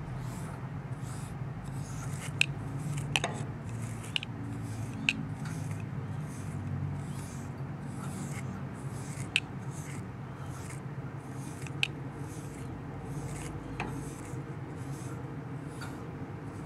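A cat brush stroking a white kitten's fur in steady, repeated swishes, about one and a half a second, with a few sharp clicks scattered among them.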